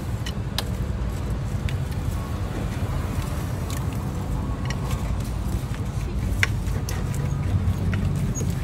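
Steady low rumble of street traffic, with a few sharp clinks of a serving utensil against plastic baskets and a bowl as cut fruit is picked out.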